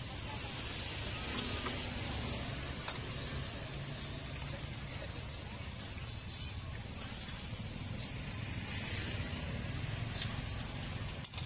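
Chilli-and-garlic sauce sizzling in a wok, a steady hiss that is strongest in the first couple of seconds, over a constant low rumble, with a few faint knocks of the ladle against the pan.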